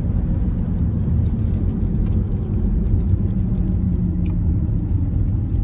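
Car interior road noise while driving: a steady low rumble of engine and tyres heard inside the cabin, with a few faint ticks.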